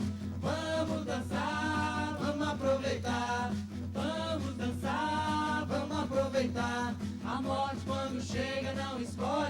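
A group of voices singing a folk dance song together in chorus, over steady music.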